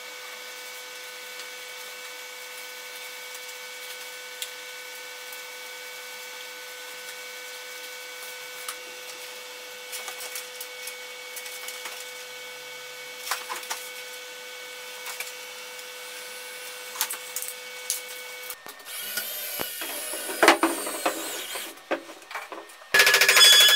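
Brush strokes and light rubbing and clicks on a wooden beam over a steady background hum. In the last few seconds a CNC router runs with whines that glide up and down in pitch, then a loud high-pitched machine whine starts suddenly near the end.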